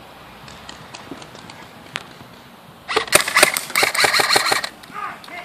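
A burst of rapid full-auto airsoft rifle fire, a fast run of sharp clicks lasting nearly two seconds, starting about three seconds in. A single sharp click comes a second earlier.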